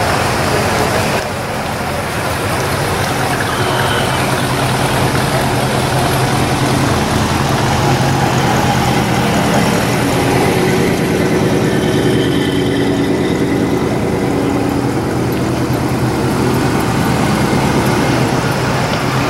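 Engines of classic cars and a lifted pickup truck rolling slowly past one after another, a steady low exhaust rumble.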